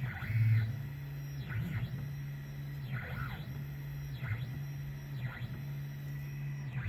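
Stepper motors of a home-built CNC router driving the gantry through a quick engraving-style toolpath. A steady low motor hum changes pitch and briefly breaks with each new move, roughly every second, and a short higher sound comes at each change.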